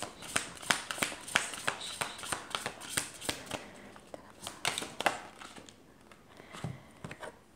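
A deck of oracle cards being shuffled by hand: a quick run of card snaps and slaps, several a second, dying away after about five seconds.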